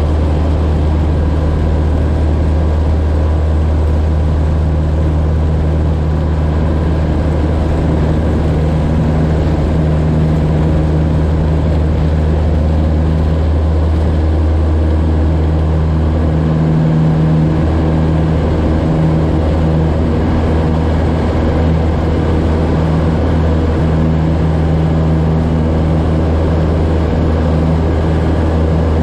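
A Citabria's four-cylinder piston engine and propeller running steadily at takeoff power through the takeoff and initial climb, with wind rushing over the outside-mounted microphone. The engine note shifts slightly a little over halfway through.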